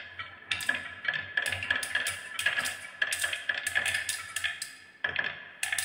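Glass marbles rolling along wooden tracks and clacking against each other as they pile up behind a wooden gate. The result is a dense run of quick clicks that thins out near the end, with a last small cluster.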